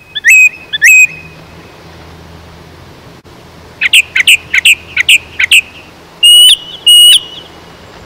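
Song thrush singing: loud, clear whistled phrases with pauses between them. A short phrase of a few notes comes at the start, a quick run of about six repeated notes about four seconds in, and two drawn-out notes near the end.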